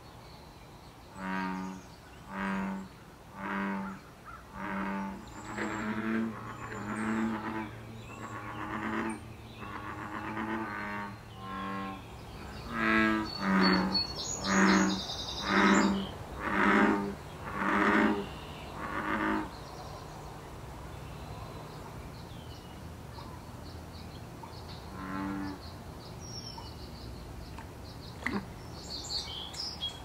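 American bullfrogs calling in their breeding-season chorus: low, repeated croaks about once a second, a louder run from about 13 to 19 seconds and one more call near 25 seconds. These are males advertising to females and rivals. Small birds chirp faintly in the background.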